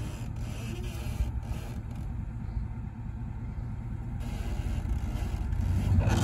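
Engine of an old square-body Suburban running with a steady low rumble, growing louder near the end, as it sits hitched by a tow strap to a rolled pickup.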